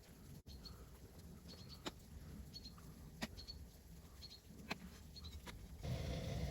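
Wood fire crackling, with a few sharp pops spaced about a second apart, and short high chirps like a small bird calling. Near the end a louder, steady low rumble with hiss sets in.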